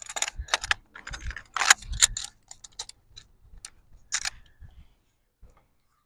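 Quick clicks and light clatter of fishing gear being handled: a landing net and hanging scale readied to weigh a bream. The clicking is dense at first and thins out after about four and a half seconds.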